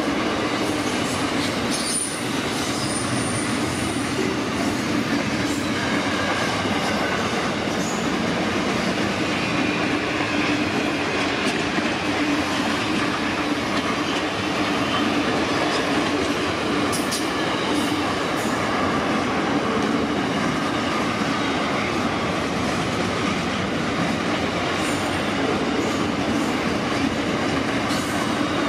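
Freight train's container wagons rolling steadily past: a continuous rumble of steel wheels on rail with scattered clicks, and a faint high wheel squeal a few seconds in.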